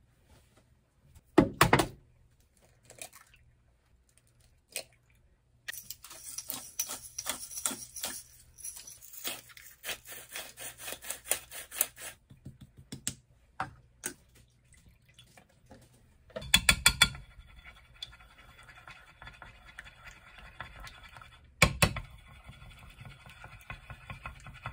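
Kitchen food-prep sounds: a few knocks on a wooden board, a salt grinder twisted in quick strokes over raw eggs, then wooden chopsticks beating eggs in a ceramic dish with a steady clicking and scraping, broken by a couple of louder knocks.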